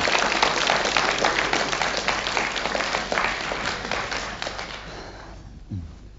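Studio audience applauding, the clapping dying away over the last couple of seconds.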